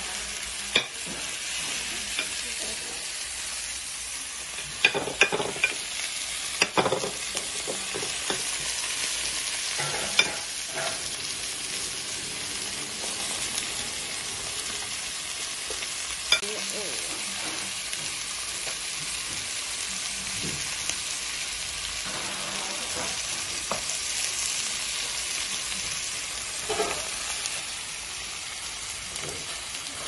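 Beef, kimchi and onion sizzling on a hot cast-iron plate: a steady hiss, with occasional sharp clinks of metal tableware.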